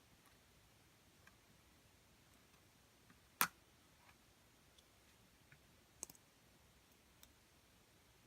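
A few sharp, isolated clicks and taps of hard plastic or metal against near silence, from the laptop and tools being handled during a RAM upgrade. The loudest comes about three and a half seconds in, with a quick double click around six seconds.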